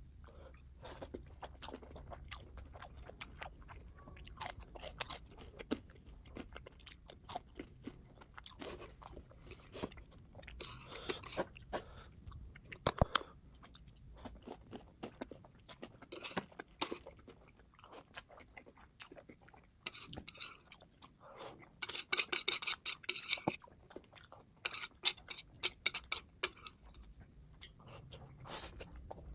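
Close-up chewing and crunching of crispy food, sped up to double speed, with many sharp crackles and a dense, loud run of crunching about two-thirds of the way through.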